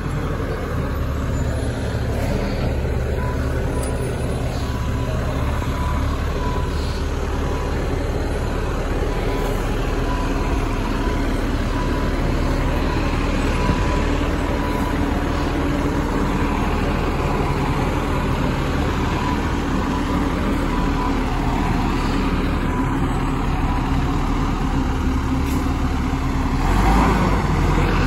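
Recycling truck's engine running steadily as the truck drives slowly toward the microphone, getting louder near the end as it pulls up close.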